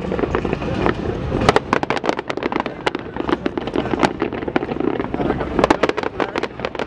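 Fireworks display going off: many quick, overlapping bangs and crackles, growing dense about a second and a half in.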